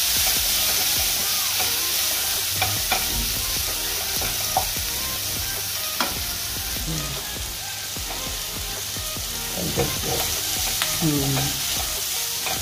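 Sliced onions and green chillies sizzling in hot oil in a nonstick kadai, stirred with a wooden spatula, with a few sharp knocks of the spatula against the pan.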